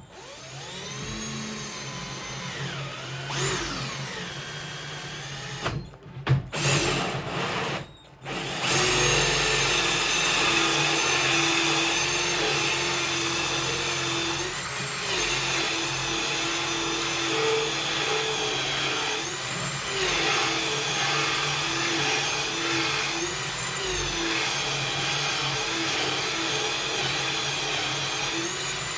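Electric drill driving a hole saw to cut a hole: it spins up, stops and restarts a couple of times about six to eight seconds in, then runs steadily under load with small changes in speed.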